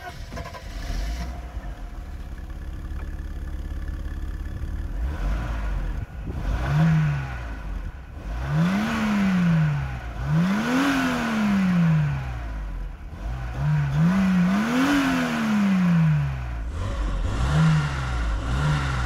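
1988 Mercedes-Benz 260E W124's 2.6-litre straight-six petrol engine, heard at the exhaust from behind the car. It idles steadily for a few seconds, then is revved about seven times, each rev climbing and falling back to idle. The middle revs are the biggest.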